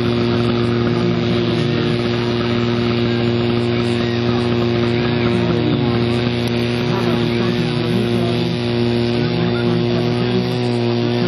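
Portable fire pump engine running steadily, a constant loud drone with a stack of even tones.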